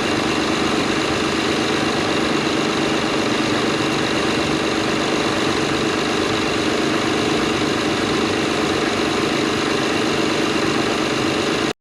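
Acura TL's V6 engine idling steadily and evenly after a new ignition coil and spark plugs, no longer missing on cylinder 6.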